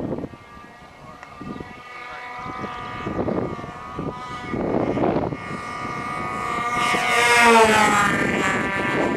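Twin-engine radio-control model airplane flying by, its fuel-burning model engines giving a high buzzing drone that grows louder, peaks about three quarters of the way through as it passes, then drops in pitch.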